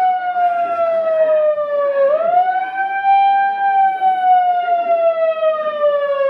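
Wailing siren, loud: its pitch sweeps quickly up and then slides slowly down, over and over about every four seconds, with a fresh rise about two seconds in and again at the end.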